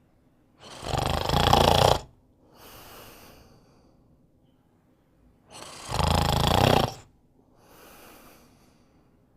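Slow, deep snoring during sleep: two loud snores about five seconds apart, each followed by a softer breath.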